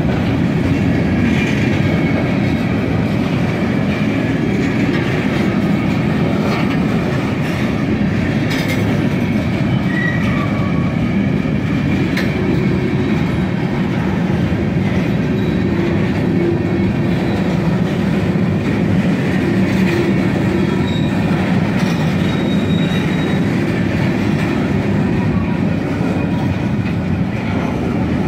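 Freight train's open-top hopper cars rolling past close by: a steady, even rumble and rattle of steel wheels on rail, with faint brief wheel squeals now and then.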